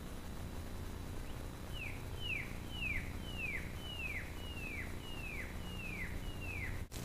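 A bird calling a series of about nine clear whistled notes, each sliding down in pitch, at roughly two notes a second, starting about two seconds in.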